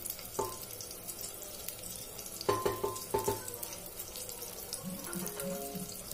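A wooden spatula tapping against the rim of an aluminium pressure cooker, several short taps that ring briefly, about half a second in and a cluster around the middle, over a faint steady sizzle of batter cooking in the heated cooker.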